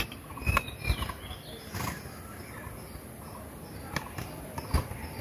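A spoon tapping and scraping against a bowl and small dishes as spice powder is spooned in: a handful of light clicks. Faint bird chirps sound in the background.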